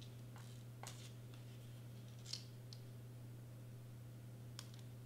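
Faint paper handling: a few soft rustles and light clicks as a thin paper cutout is pressed down onto glue tape and cardstock, over a steady low hum.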